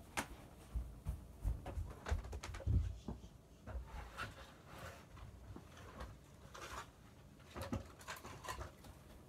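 Someone moving about and handling things: several soft low thumps in the first three seconds, then scattered light clicks and taps.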